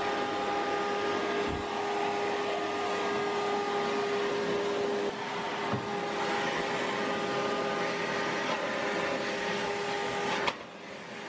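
Vacuum cleaner running steadily, a hum over a rushing noise, its floor nozzle pushed over a hard wooden floor; the sound drops away near the end.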